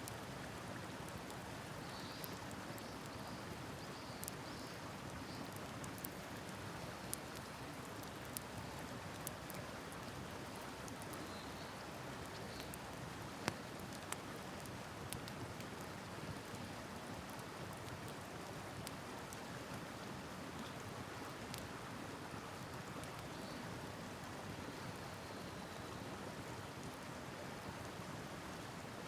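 A wood campfire crackling with scattered sharp pops, the strongest about halfway through, over the steady rush of a river.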